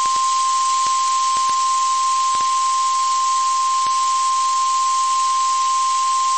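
NOAA Weather Radio warning alarm tone, the 1050 Hz tone that switches on weather-alert receivers, sent here as a routine test. It is one steady, unbroken high beep over radio static hiss, with a few faint clicks.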